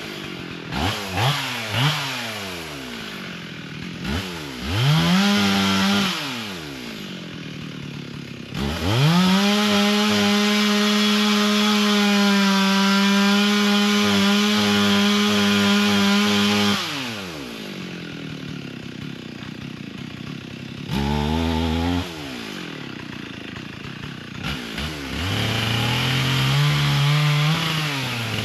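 Two-stroke chainsaw revved in short blips, then held at full throttle for about eight seconds with slight dips in pitch, as when cutting wood, before dropping back to idle. It is revved twice more, the last rev rising near the end.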